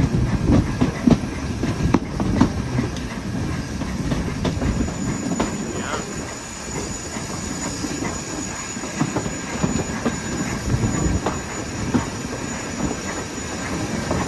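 Railway coach running along the track: a steady rumble with irregular clicks of wheels over the rails. A faint high-pitched wheel squeal comes in about four seconds in.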